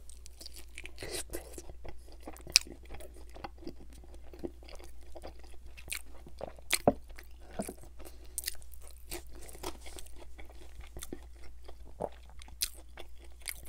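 A man biting and chewing a ranch-dipped fried chicken wing: irregular crisp crunches and mouth clicks, several a second.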